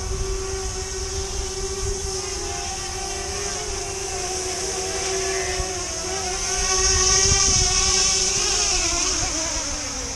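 Electric motors and propellers of a Fimi Manta tiltrotor drone hovering with a steady buzzing hum and a high propeller hiss, the pitch wavering as the motors correct the hover. The hum grows louder as it comes down to land, then falls in pitch and stops as the motors spool down on touchdown near the end.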